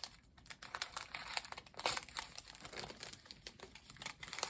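Small plastic bags of diamond-painting drills crinkling as they are handled and sorted through by hand, in a run of irregular crackles.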